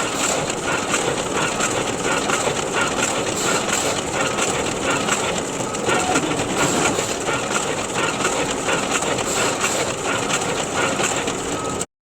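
Photocopier running: a steady mechanical whirring and clatter with a repeating rhythm, which stops abruptly near the end.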